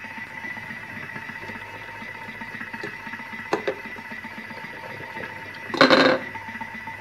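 Thermomix food processor running with a steady motor hum and whine as it cooks soup. A couple of light clicks, then a short loud plastic clatter near the end, as the measuring cup in the lid opening is handled and set in place.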